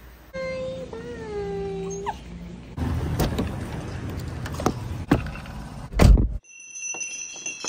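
A brief wavering tone that falls in pitch. Then a car door handle clicks several times, and a loud knock of the door comes about six seconds in.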